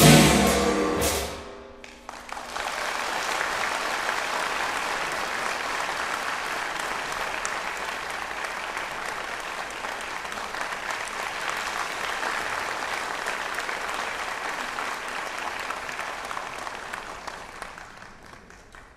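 A Chinese orchestra's closing chord with drums rings out and stops in the first two seconds; then an audience applauds steadily, the clapping fading away near the end.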